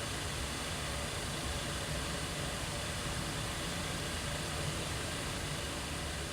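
Small electric motors of a kinetic sculpture running together: a steady whirring hum with several faint held tones over a hiss.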